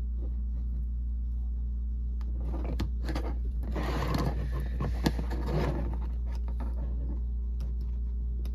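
Scraping and rustling with a few sharp clicks in the middle few seconds, from hands handling battery leads and plugging in a connector, over a steady low hum.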